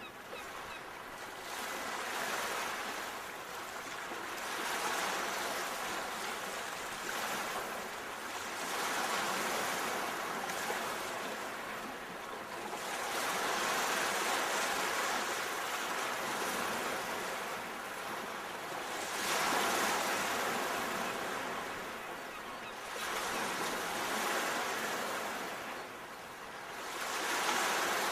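Sea waves breaking and washing ashore, a steady rush that swells and fades again every few seconds.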